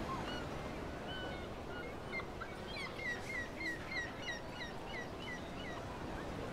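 Mixed town ambience: a steady low background murmur with a bird chirping a quick run of short notes, about three a second, through the middle.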